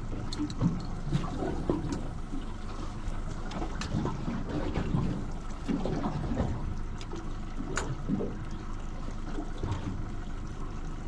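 Water sloshing and lapping against the hull of a small drifting boat, with scattered small clicks and knocks.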